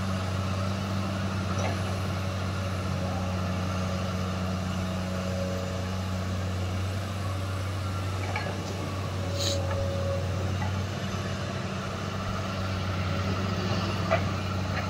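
JCB tracked excavator's diesel engine running steadily under working load as the arm and bucket dig, with a single sharp knock near the end.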